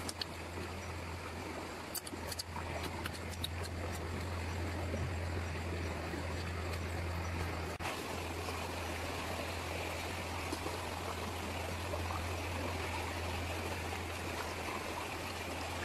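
Shallow rocky river flowing steadily, an even rushing of water, with a few light clicks about two to three seconds in.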